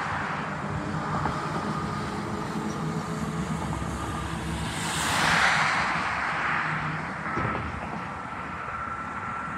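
Highway traffic passing close by, over a steady low engine hum. One vehicle rushes past about five seconds in, the loudest moment.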